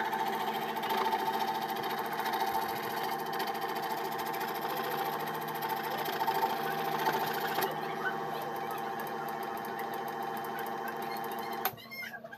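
Scroll saw running steadily, its reciprocating blade cutting through quarter-inch plywood; the saw stops shortly before the end.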